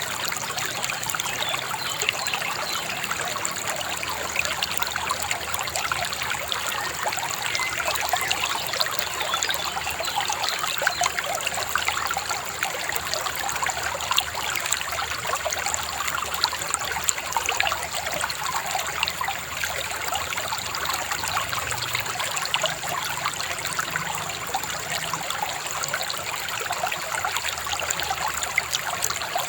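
Shallow river babbling and trickling steadily, a continuous rushing splash of water.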